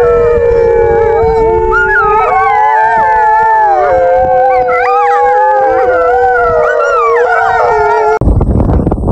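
A pack of wolves howling in chorus: several overlapping howls, one long steady low howl held beneath higher ones that glide up and down. About eight seconds in it cuts off abruptly to a loud, rough noise.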